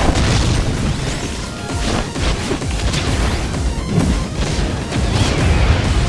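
Action music under layered fight sound effects: crashes, booms and sudden impacts.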